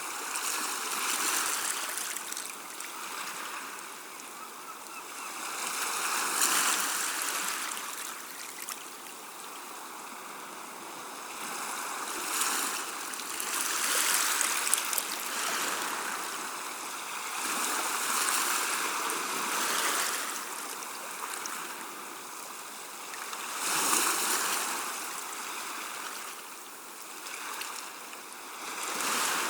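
Gentle sea waves washing onto the shore, a hissing wash that swells and falls back about every five seconds.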